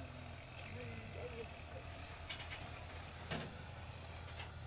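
Steady high chirring of insects over a low rumble, with a faint voice early on and a single knock about three seconds in.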